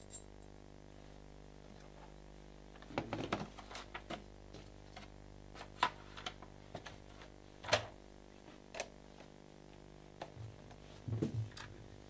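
Irregular clicks, knocks and clatters of a Hoover Sensotronic vacuum cleaner's metal extension tubes and plastic fittings being handled and pushed together, starting about three seconds in, with the loudest knocks near the middle.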